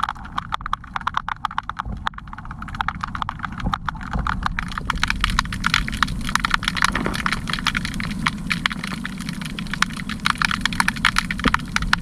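Fishing lure rattling underwater: a lipless crankbait's rattles and hooks clicking rapidly and irregularly, heard underwater, over a steady low rumble of water. The clicking grows denser and louder about five seconds in.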